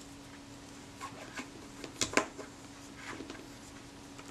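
A few light clicks and taps of small metal camera-lens parts being handled on a work mat, the sharpest two in quick succession about two seconds in, over a faint steady hum.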